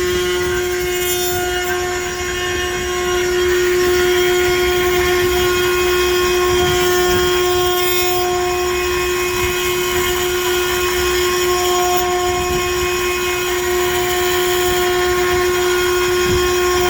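5'×9' CNC router's spindle running with a steady high whine over a rough mechanical noise.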